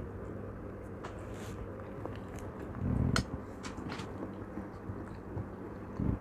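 A person chewing and biting food close to the microphone during a mukbang meal of chicken steak and vegetables, with small wet mouth clicks. A louder dull sound comes about three seconds in, over a steady low hum.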